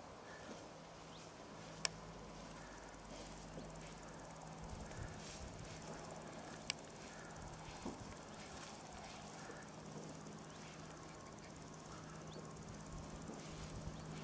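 Faint outdoor ambience: a steady low hum under a soft hiss, with two sharp clicks about five seconds apart.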